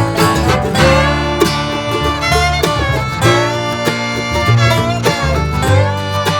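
Music: an upbeat bluegrass-style string-band tune with fiddle over quick plucked banjo and guitar notes.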